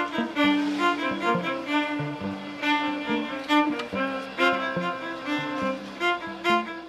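Instrumental background music led by strings, with many short notes in a quick, busy pattern.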